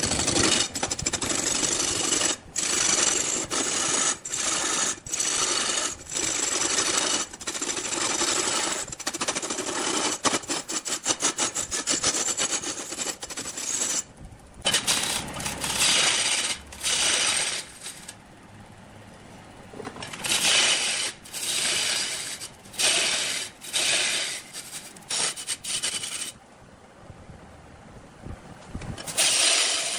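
Long-handled cutting tool shaving a large spinning log on a wood lathe, a rasping scrape with rapid fine clicks of chips tearing off. The cut runs steadily at first, then comes in separate passes of a second or two with short quieter pauses, the longest about two-thirds of the way in and again near the end.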